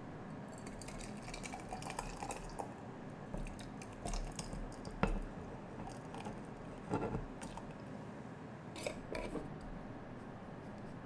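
Chopped peaches in sugar syrup slid from a plastic bowl into glass jars: wet squishing and dripping, with scattered sharp clicks of the bowl and spatula against the glass, the sharpest about five seconds in.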